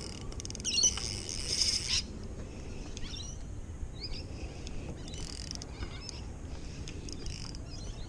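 Spinning reel being wound in bursts as a hooked fish is played, a whirring hiss that is loudest over the first two seconds and comes again briefly midway, with a few short bird chirps in between.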